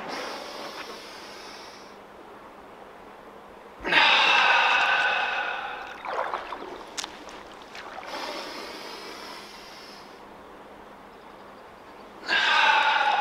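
A man breathing hard through a tensed qigong posture in which the breath is held in and then released: two loud, long rushes of breath, about four seconds in and near the end, with softer breaths between them.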